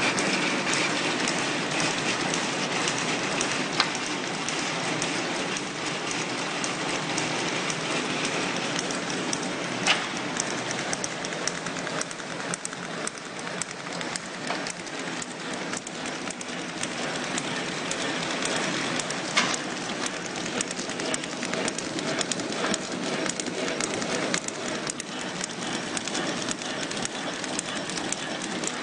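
Plastic card automatic packaging machine running: a steady, dense mechanical clatter made of many fast small clicks, with a few sharper clicks standing out now and then.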